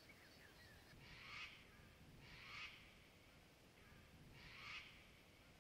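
A bird calling faintly three times, each call about half a second long and a second or two apart, over quiet swamp background.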